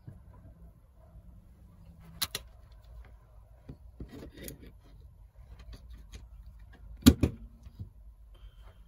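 Handling clicks and knocks as an electrolysis rust-removal bath is set up: a rusty perforated metal anode on a wire is placed in the water beside the saw blade and the wires are handled. There are scattered sharp clicks, with a loud double knock about seven seconds in, and a short faint beep near the end.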